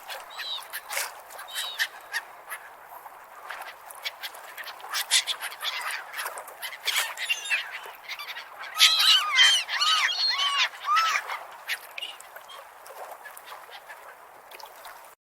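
Seagulls calling, a run of short, arched squawking cries that come thickest and loudest about nine to eleven seconds in, over a steady background hiss.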